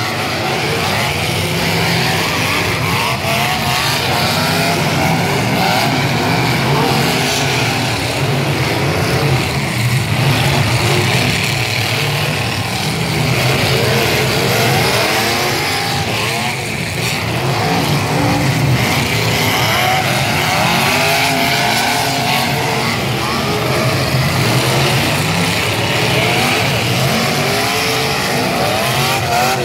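Several stock cars racing on a dirt figure-eight track, many engines revving up and down over one another without a break.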